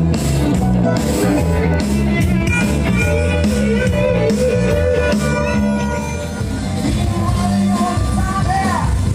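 Live band playing a rock song: bass guitar, electric guitar, keyboard and drums under a wavering lead melody.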